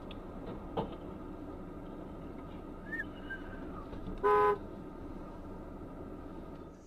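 A short vehicle horn toot of about half a second, roughly four seconds in, over a steady low hum of driving noise.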